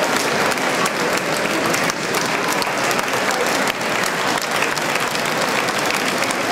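A large crowd applauding: a dense, steady patter of many hands clapping at once.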